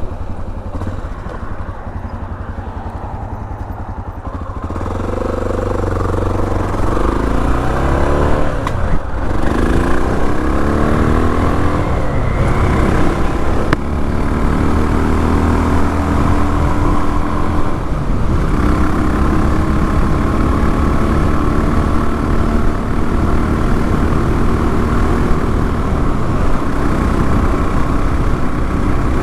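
Honda XR650L's single-cylinder engine under way on the road: running low for the first few seconds, then pulling harder with the pitch rising and dropping back twice as it goes up through the gears, then holding a steady cruise.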